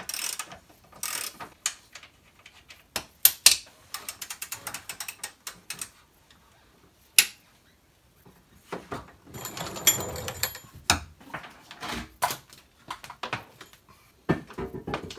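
Hand socket ratchet clicking in short runs as it works bolts under a car, mixed with sharp metallic knocks and clanks of tools and parts.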